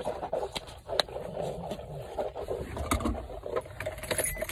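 Water being swished around in a person's mouth to rinse it, a continuous sloshing with a few sharp clicks.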